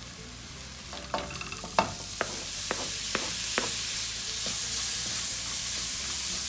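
Onion and spice masala frying in a nonstick wok, the sizzle growing louder about a second in. A run of sharp taps and knocks follows as chopped tomatoes are added, and stirring with a wooden spatula begins near the end.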